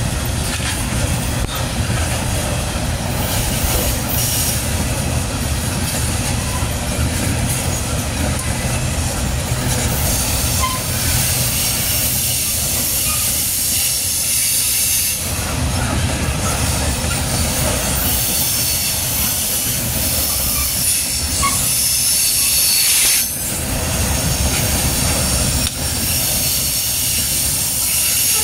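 Coal hopper cars of a freight train rolling past at close range: a steady rumble of steel wheels on the rails, with a high hissing squeal from the wheels that grows stronger about a third of the way in.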